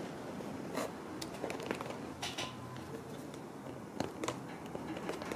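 Small scattered clicks and scratching as a plastic control horn is pressed into its slot in an EPP foam wing and a thin tool is worked into the slot.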